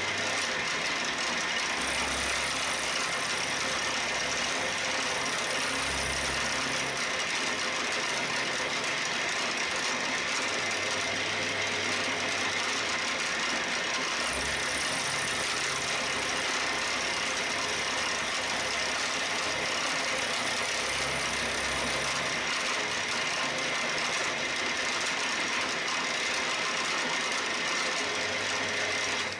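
Milling machine running with a 6 mm solid carbide end mill cutting a flat into a hardened Morse taper 1 arbour, fed slowly. A steady running noise that cuts off suddenly at the very end.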